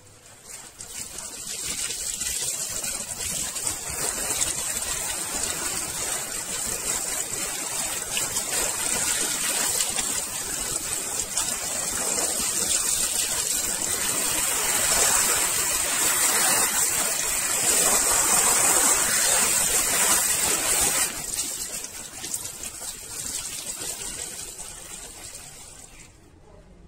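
A jet of water spraying onto a metal airbrush body held in a rubber-gloved hand, rinsing off the cleaning foam: a steady hissing spray that starts about a second in, is loudest in the middle, eases off after about twenty seconds and stops near the end.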